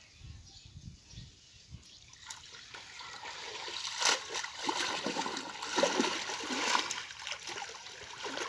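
Shallow pond water splashing and trickling as men wade and haul in a wet cast net. It is quiet for the first two seconds, then grows louder, with the sharpest splashes around the middle.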